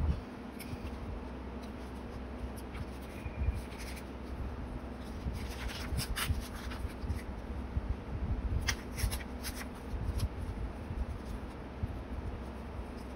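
Paper being handled by hands: instant photos and paper cards slid, lifted and laid onto a journal page, in soft rustles and light taps. The rustling comes in short clusters, most of it about halfway through and again about two-thirds in, over a steady low room hum.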